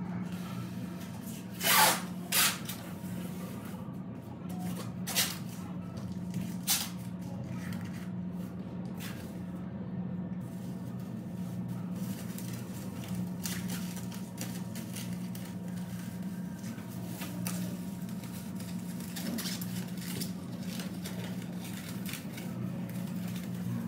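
Masking tape being pulled off the roll and pressed down, with plastic masking film crinkling as it is smoothed over a car body. The tape gives a few brief loud rips, the loudest two about two seconds in, over a steady low hum.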